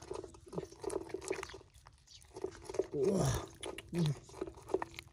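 Wet mud squelching and crackling as bare hands dig through it to pull out small fish. A few short vocal grunts or exclamations sound near the start, around the middle and near the end.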